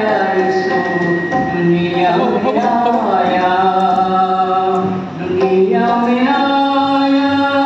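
A man sings a gospel song solo into a microphone, holding long notes that slide between pitches, with tabla accompaniment.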